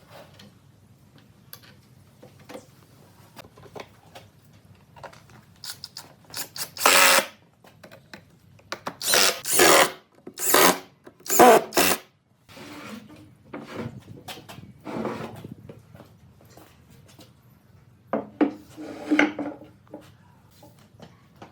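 Power tool working wood in a handful of short bursts, loudest around the middle, with a low hum between them.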